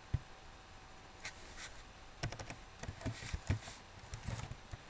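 A single mouse click, then a quick run of keystrokes on a computer keyboard starting about two seconds in, as a password is typed.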